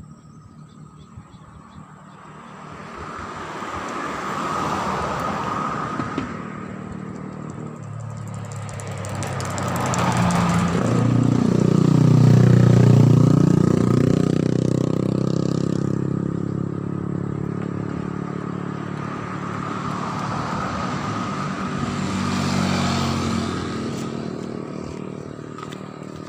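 Motor vehicles passing one after another. Each engine swells and fades, its pitch rising and then falling as it goes by. The loudest and deepest pass comes about halfway through.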